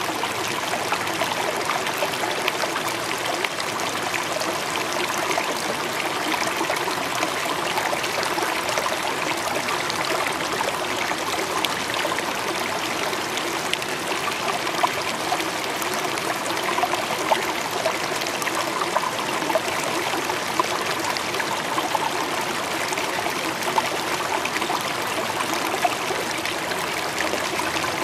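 Running water: a stream trickling steadily, with small splashes flickering through it.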